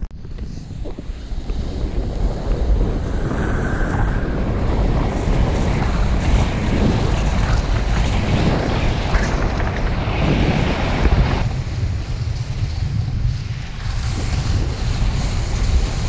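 Wind buffeting the microphone of an action camera during a fast downhill run, over the hiss and rasp of sliding across the snow. It builds over the first couple of seconds.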